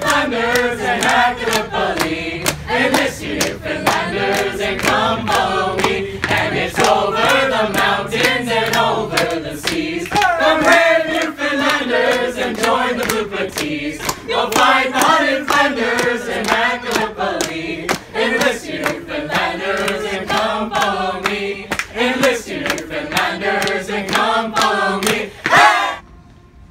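Mixed group of men and women singing a Newfoundland folk song together, with hands clapping along on the beat. The singing and clapping cut off suddenly near the end.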